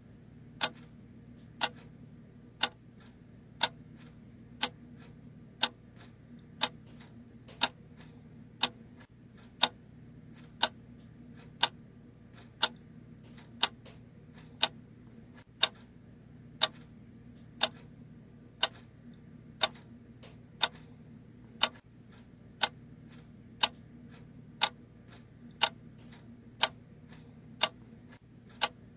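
Clock ticking steadily, a sharp tick about once a second with fainter clicks in between, over a faint low hum.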